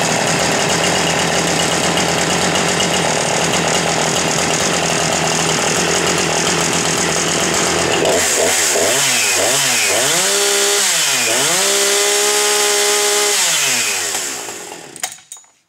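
Husqvarna 357 XP two-stroke chainsaw idling steadily, then revved in several quick blips about eight seconds in and held at high revs twice. The revs then fall and the engine stops near the end.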